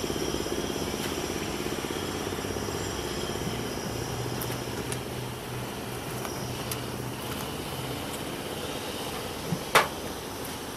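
Steady buzzing of many honeybees around an opened hive, with a lower hum from a bee passing close in the middle. A single sharp knock near the end.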